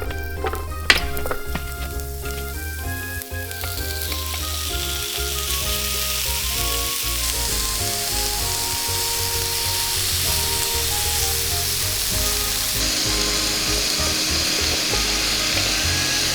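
Food sizzling as it fries on a hot plate, the sizzle rising in about four seconds in and getting louder near the end, after a few sharp clicks at the start.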